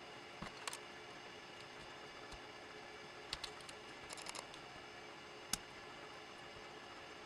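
A few faint clicks and taps of test leads being handled and pushed onto a small battery's terminals, the sharpest click about five and a half seconds in, over a steady low hum.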